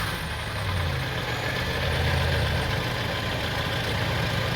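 Honda CR-V's 2.4-litre four-cylinder engine idling steadily, easing back down from a throttle blip in the first second.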